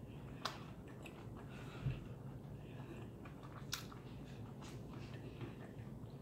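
Chewing a mouthful of fried onion ring with the mouth closed: faint steady chewing with a few short, sharp crunching clicks, the clearest about half a second in and near four seconds in, and a soft low thump about two seconds in.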